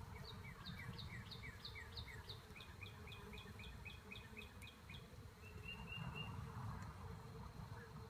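A songbird sings a quick run of about fifteen repeated two-note phrases, roughly three a second, then gives a few short chirps about five and a half seconds in. Beneath it runs a faint, steady hum of honey bees from the open hive.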